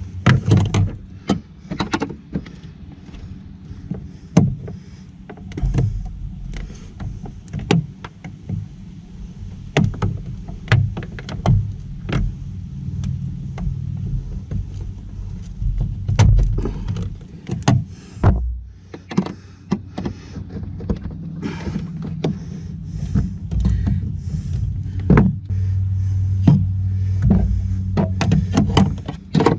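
Metal-shafted pry tool scraping, clicking and knocking against the plastic retaining tabs of a car's grille emblem, in many irregular sharp clicks over a low rubbing rumble.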